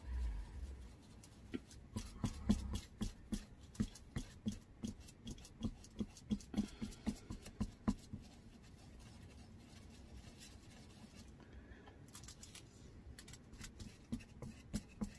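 Small paintbrush dabbing and scrubbing sealer into the stamped grooves of an air-dry clay spoon rest: a run of soft, quick taps about three a second, fading out after a few seconds and returning briefly near the end.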